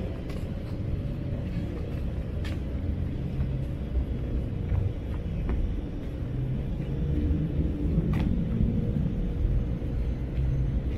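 Steady low rumble of city road traffic, with a couple of faint clicks.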